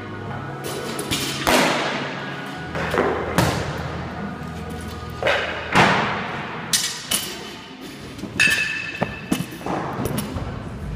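Rubber bumper plates being pulled off and slid onto steel barbell sleeves and set down on a rubber gym floor: a string of thuds and clanks, roughly one every second.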